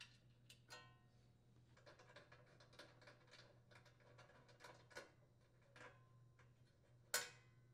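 Faint, irregular metallic clicks and taps of a socket wrench working the nut and bolts off a sheet-metal governor arm cover plate on a small snowblower engine, some with a brief ring, and one louder click near the end, over a low steady hum.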